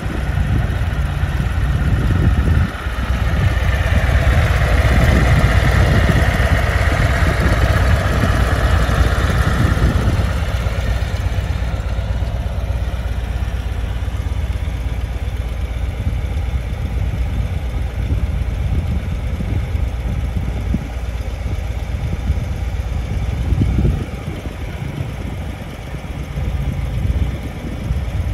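2023 Harley-Davidson Street Glide ST's Milwaukee-Eight 117 V-twin idling steadily, a little louder for several seconds near the start.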